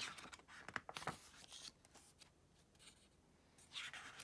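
Glossy photobook pages being turned by hand, with brief paper rustles and slides at the start, about a second in, and again near the end.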